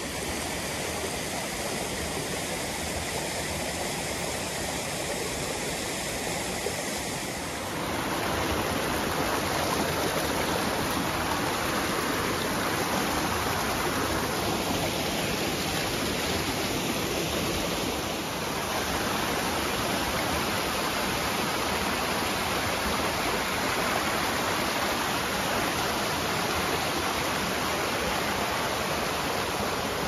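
Shallow mountain stream rushing and splashing over rocks and small cascades, a steady wash of water that grows a little louder about eight seconds in.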